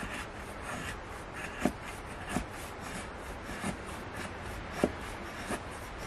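Bushcraft knife carving a feather stick: the blade shaves fine curls off a wooden stick in short scraping strokes, about five of them, roughly one a second.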